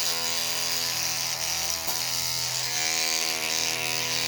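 Electric toothbrush running with a steady buzz.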